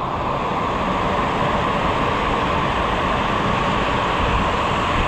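Steady rushing of water flowing down a ProSlide Tornado funnel waterslide, an even, unbroken noise that does not change.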